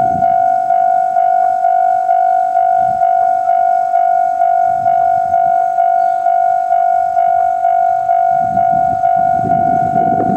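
Japanese level-crossing warning bell ringing, a loud steady ding repeated a little over twice a second. A low rumble builds under it near the end.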